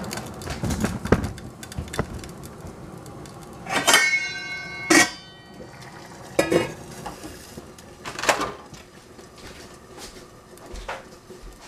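Scattered clinks and knocks of metal kitchenware: pots, bowls and utensils. One strike about four seconds in leaves a metallic ring that fades over about a second.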